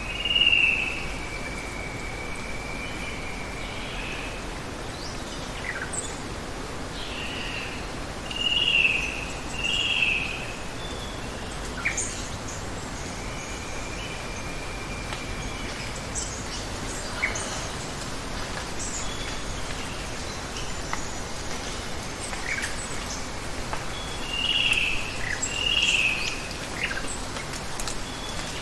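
Rainforest ambience: a steady hiss of running water, over which a bird calls with short down-slurred notes, several times in pairs about a second apart, and twice holds a long level whistle. Scattered short high chirps and ticks come and go.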